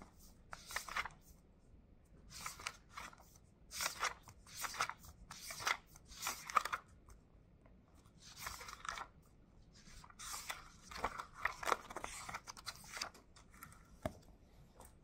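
Pages of a spiral-bound paper notebook being turned and flipped by hand: a series of crisp paper rustles one after another, with a short pause in the middle.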